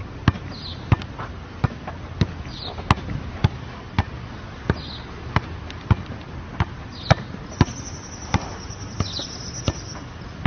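A football struck over and over in a steady rhythm, about three sharp thumps every two seconds.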